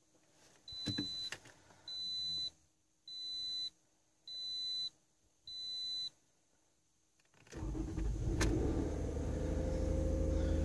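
A 2006 Toyota RAV4's dashboard warning chime beeps five times, evenly spaced. About seven and a half seconds in, the 3.5 V6 cranks and catches on a cold start, then settles into a steady, raised idle.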